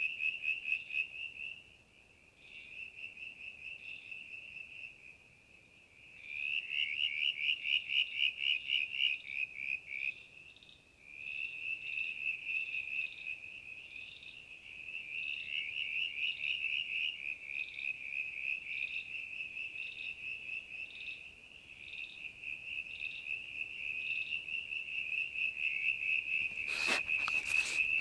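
Night-time chorus of calling animals: a steady, high-pitched pulsing chirr, repeated in long trains with brief pauses. Near the end come a few sharp knocks and rustles.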